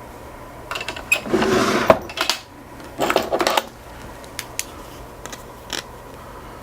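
Metal padlock parts being handled: a few sharp clicks and two short rattling, scraping bursts, about one and a half and three seconds in.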